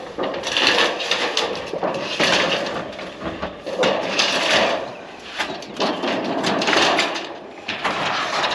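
Sheet-metal ridge cap scraping and rattling as it is slid along a metal roof and worked into place over the ridge, in repeated noisy swells with small clicks and knocks.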